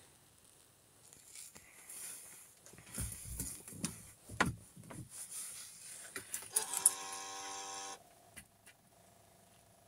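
Ignition of a Nissan Interstar 2.5 dCi diesel van being switched on before a cold start. After some rustling and knocks come a few sharp relay clicks and a buzzing tone about a second and a half long that cuts off abruptly, leaving a faint steady hum.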